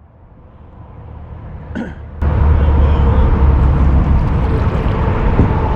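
Wind buffeting the microphone: a low rumble that builds, then jumps suddenly about two seconds in to a loud, steady roar.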